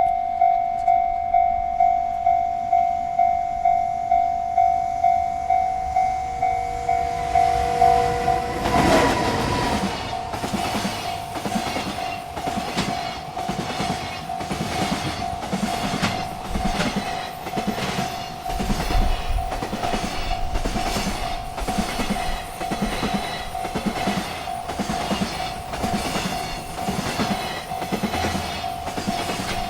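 Railroad crossing bell ringing, about one and a half strikes a second. About nine seconds in, a freight train reaches the crossing and passes, its wheels clacking over the rail joints in a steady rhythm, with the bell still ringing under it.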